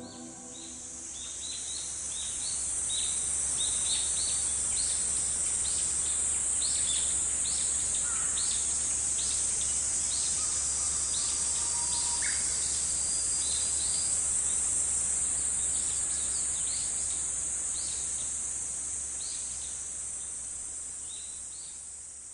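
Woodland ambience: a steady high-pitched insect drone, with short bird chirps repeating over it and a low steady hum beneath, fading out near the end.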